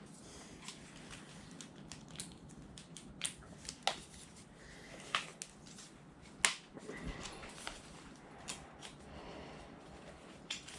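Scattered light clicks and knocks from objects being handled, irregularly spaced, over a faint room background.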